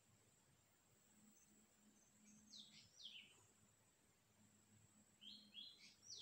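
Faint bird calls in quiet woodland: two quick falling chirps about two and a half seconds in, then a short run of notes ending in another falling chirp near the end.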